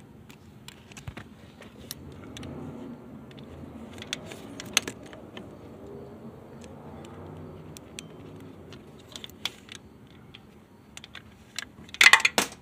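Hand ratchet and socket working a bolt, scattered metallic clicks and clinks, with a loud cluster of metal clatter near the end.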